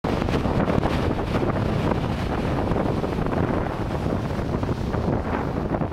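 Strong wind buffeting the microphone in gusts, over the continuous wash of rough storm surf breaking on a stony beach.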